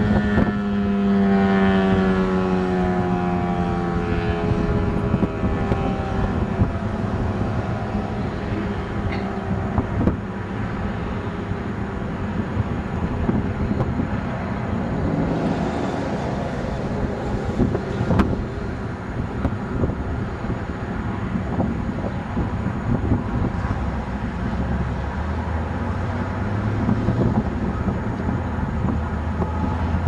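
Federal Signal Eclipse 8 outdoor warning siren ending its steady Alert tone: the tone slides down in pitch and fades away over the first several seconds. After that comes steady rumbling outdoor noise, with traffic and wind on the microphone.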